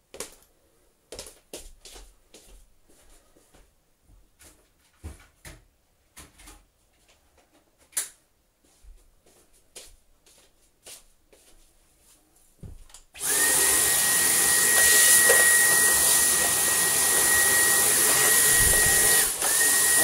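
Scattered knocks and clicks of handling, then about two-thirds of the way in a Dyson cordless stick vacuum switches on and runs steadily with a high whine. Near the end it cuts out for a moment and starts again.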